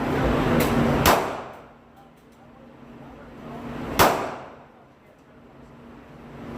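Sharp metallic clangs, each followed by a short ringing tail: a lighter hit and then a loud one about a second in, and another loud one about three seconds later.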